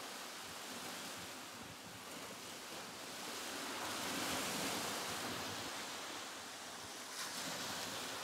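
Sea waves washing in a steady rushing hiss that swells and eases, a little fuller around the middle.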